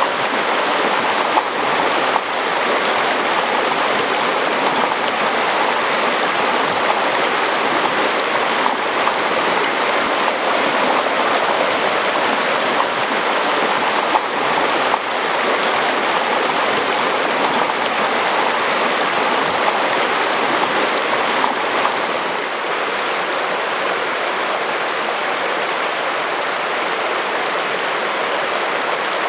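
Shallow mountain creek flowing over cobbles and boulders: a steady rush of water that drops a little in level about three-quarters of the way through.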